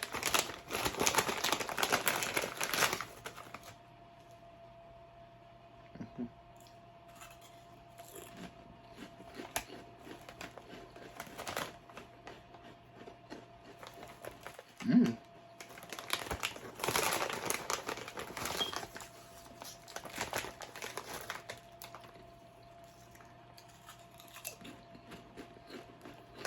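Rap Snacks honey jalapeño chip bag crinkling as a hand rummages in it, in bursts: loudest in the first few seconds and again a little past the middle, with quieter crackling between.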